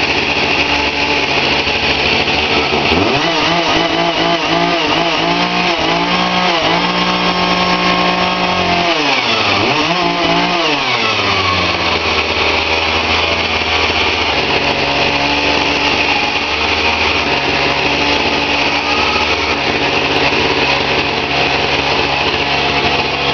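Chainsaw engine running after its carburetor was taken apart and cleaned, revved up and down several times in the first half, then held at a steady speed. It runs smoothly, "like a new one".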